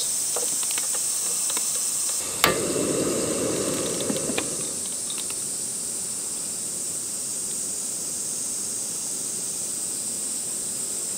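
Steady high-pitched buzz of summer insects in woodland. A sharp knock comes about two seconds in, followed by a couple of seconds of low rushing noise and a few faint clicks.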